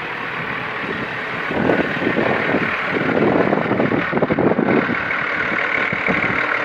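Vehicle engine running in slow traffic, a steady engine and road noise that grows louder about two seconds in.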